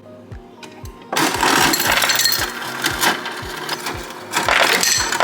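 Background music with a steady beat, overlaid from about a second in by a loud, dense clattering noise that stops near the end.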